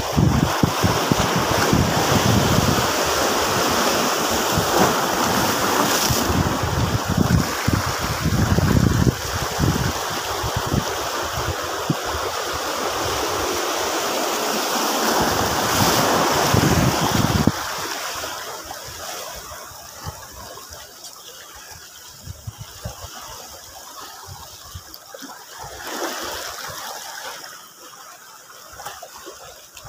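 Small waves washing over rocks at the shoreline, with wind buffeting the microphone. The wind rumble drops off suddenly a little over halfway through, leaving a quieter wash of surf.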